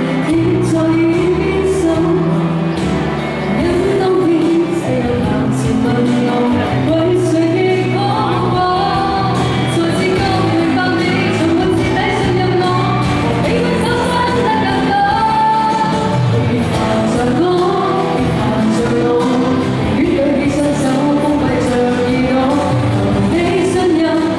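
A woman singing a pop song live into a microphone, accompanied by a strummed acoustic guitar.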